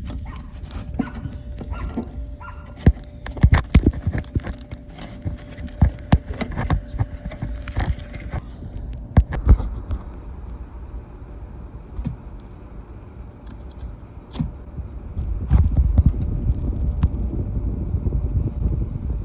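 Handling noise from a lint-clogged dryer vent screen: a rapid run of knocks and clatter in the first half, then fewer scattered knocks, over a low rumble that grows louder about three-quarters of the way through.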